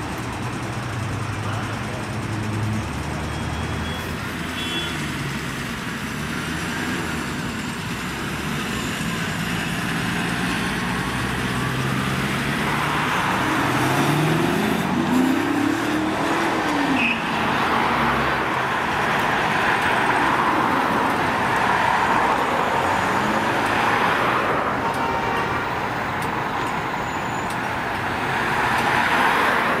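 Road traffic passing at an intersection: car engines and tyre noise, then a route bus pulling away, its engine rising and falling in pitch as it gathers speed, with the road noise growing louder.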